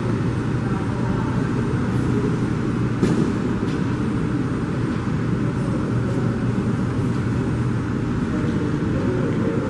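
Airbus A330 airliner taxiing close by: a steady low jet-engine rumble with a constant hum underneath.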